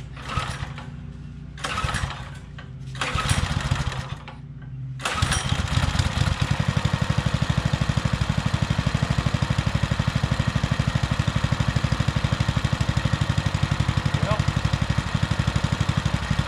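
Baja Warrior mini bike's small single-cylinder engine being cranked in three short bursts, then catching about five seconds in and settling into a steady, even idle. It idles on its newly fitted replacement carburetor, which had been put on to cure a failure to idle off choke.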